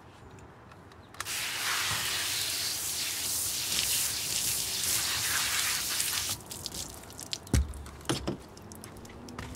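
Fine water spray hitting a bunch of radishes and a glass tabletop, starting about a second in and running steadily for about five seconds before it stops. Then a few drips and knocks follow, the loudest a sharp knock shortly after the spray ends.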